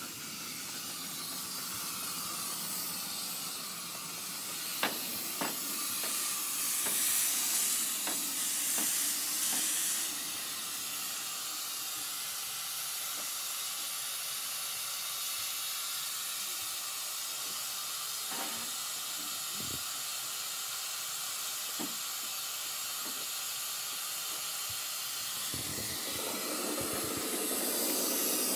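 Steady steam hiss from a ride-on miniature live-steam locomotive standing in steam, louder for a few seconds early on and again near the end, with a few light metallic clicks.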